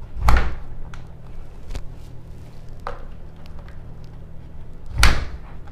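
Plastic handling knocks and clicks as a clip is pressed onto a reverse osmosis unit's plastic membrane housing: a loud knock near the start, a few light clicks, then another loud knock about five seconds later, over a steady low hum.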